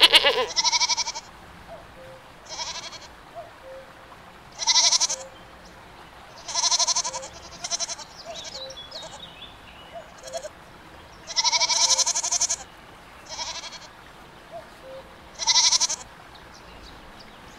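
Goats bleating repeatedly: about ten wavering, high calls of up to a second each, spaced a second or two apart.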